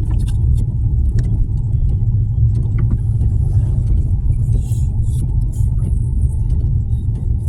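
Car driving on a snowy road: a steady low rumble of engine and tyres, with a few faint ticks over it.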